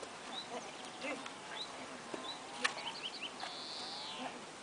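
Small birds chirping repeatedly in short, high, rising calls, with one longer call that falls away near the end. A single sharp click sounds a little past halfway.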